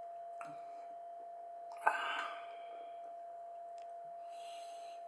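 A man lets out a sharp, breathy exhale after a swallow of beer, with a faint click as the plastic cup is set down near the end. A steady high-pitched tone hums underneath throughout.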